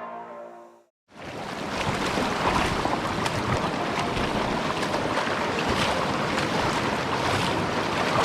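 Background music fading out in the first second. Then a steady rush of river water with wind buffeting the microphone, with a few faint clicks.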